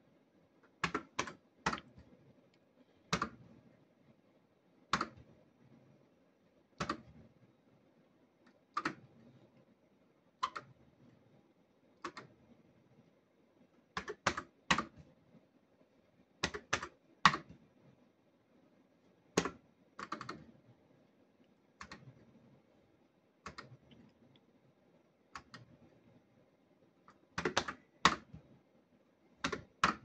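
Sharp mechanical clicks from a fruit machine being played quickly: its buttons are pressed and its reels spin and stop, about one play every two seconds. The clicks come singly or in quick runs of two or three, over a faint low hum.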